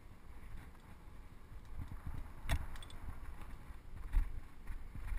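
Mountain bike riding fast down a dirt singletrack, heard from the bike: a steady low rumble of tyres on dirt, with the bike rattling and knocking over bumps, the sharpest knocks about two and a half and about four seconds in.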